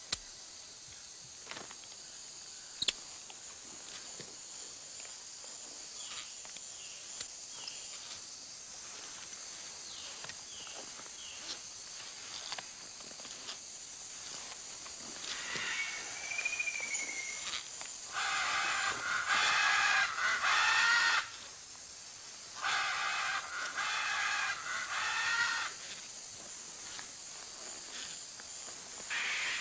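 Tropical rainforest ambience: a steady high hiss of insects, with animal calls over it. Midway there is a single wavering whistle, and later two loud bouts of rapid repeated calls, each lasting about three seconds.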